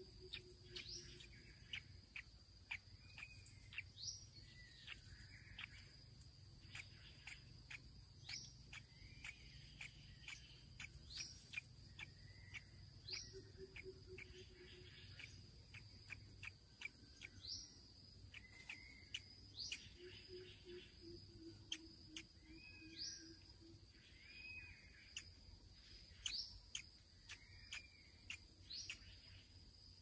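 Faint forest ambience: birds calling, with a short, sharply rising call repeated every few seconds and softer arched chirps between. A steady high-pitched insect drone runs underneath.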